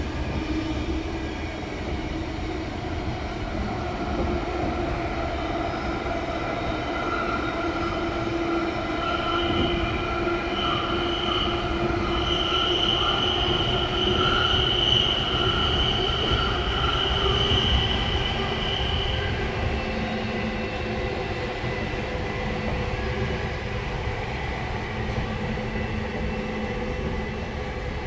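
Tokyo Metro Tozai Line 05 series train with permanent-magnet synchronous traction motors running between stations in the subway tunnel: a steady rumble of wheels and running gear. High steady tones come in about nine seconds in and die away near nineteen seconds.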